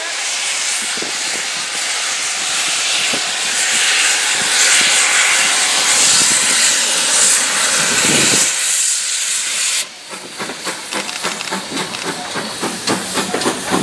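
Manor-class 4-6-0 steam locomotive 7828 Odney Manor pulling away with a loud hiss of steam. The hiss cuts off suddenly about ten seconds in, leaving a quick run of short rhythmic beats as the engine draws close and passes.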